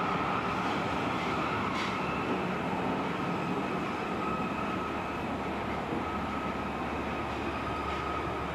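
Osaka Metro 400 series subway train running, heard from inside the car: a steady rumble of wheels and running gear with a faint, steady high whine.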